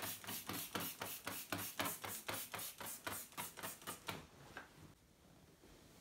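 Trigger spray bottle squirted rapidly at window glass, a quick string of short hisses about five a second, stopping about four and a half seconds in.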